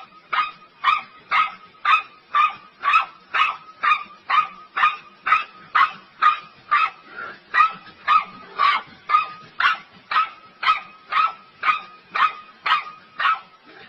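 A dog barking over and over in a steady, even rhythm of short barks, about two and a half a second.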